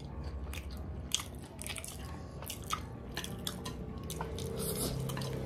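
Close-miked eating sounds: chewing, biting and mouth smacks from people eating spicy fried chicken legs and chowmein noodles. Many short sharp clicks are scattered through it.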